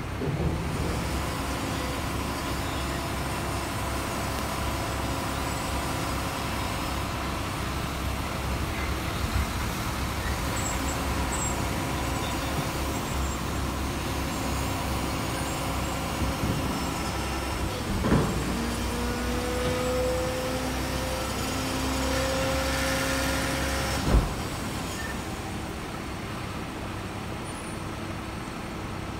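Peterbilt Heil front-loader garbage truck's engine running steadily amid traffic. About two-thirds of the way through comes a sharp knock, then a slightly rising whine for about five seconds that ends in a loud bang.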